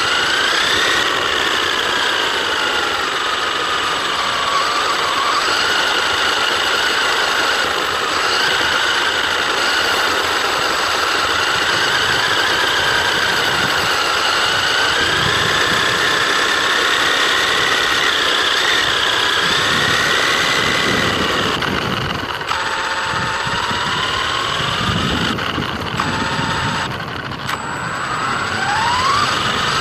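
Electric motor and drivetrain of an Absima AB1BL 1:10 brushless RC buggy whining, the pitch rising and falling as the speed changes, over a rough rolling noise from the tyres. The whine drops low twice near the end, then climbs steeply as the buggy accelerates.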